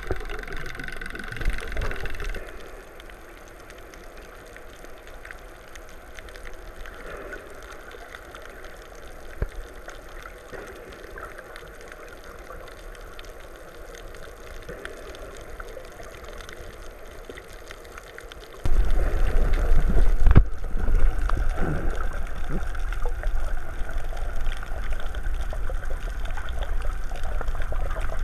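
Muffled underwater water noise, as picked up by a camera in a waterproof housing, with gurgling. About two-thirds of the way through it jumps suddenly to a much louder noise with a heavy low rumble.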